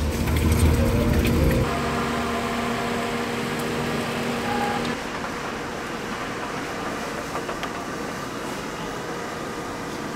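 Steady outdoor street noise with a faint low hum, louder and deeper for the first second and a half.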